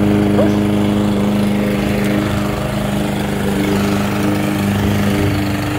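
Craftsman M260 gas walk-behind lawn mower engine running at a steady speed as it is pushed across grass.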